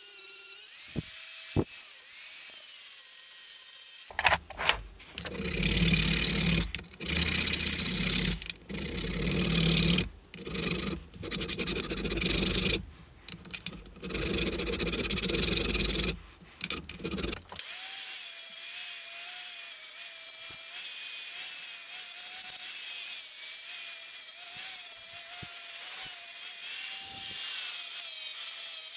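An angle grinder whining steadily against the steel hammer head, then a hand file rasping in repeated strokes, one every second or two, across the hammer clamped in a vise. About two-thirds of the way through, the angle grinder starts again and runs steadily with a slightly wavering pitch as it grinds the hammer.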